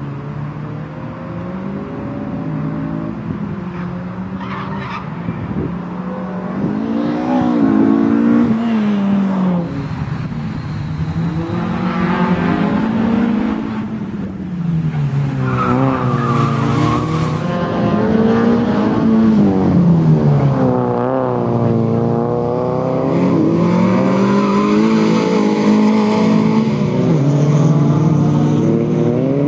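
Renault Clio's engine revving up and falling back over and over as the car is driven hard through a tight cone-and-tyre-stack course, with tyres squealing on the tarmac at times.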